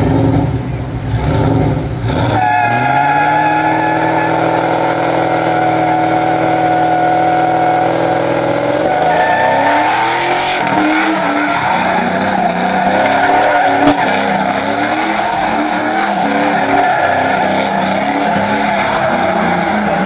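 Car engine revved up hard about two seconds in and held at high revs while the tyres spin and squeal in a burnout, then surging up and down as the car spins donuts with the tyres still screeching.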